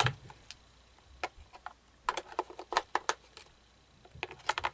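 Irregular sharp clicks and taps of hard plastic as the back of a Big Mouth Billy Bass animatronic fish is handled around its battery compartment. They come singly and in small clusters, with a few near the end.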